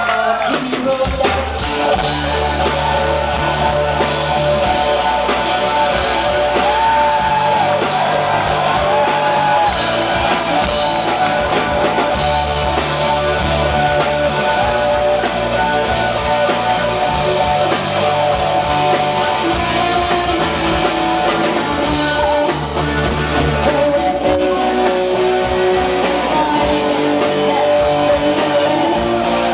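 Live rock band playing a song: electric guitars ringing over long held bass notes and drums, with a singing voice.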